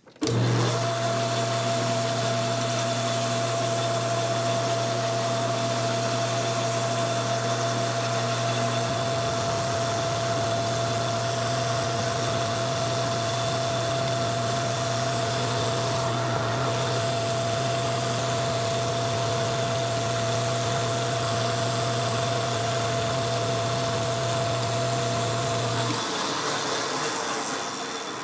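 Metal lathe running steadily with a constant hum and a steady whine, then switched off about 26 seconds in and spinning down to a stop.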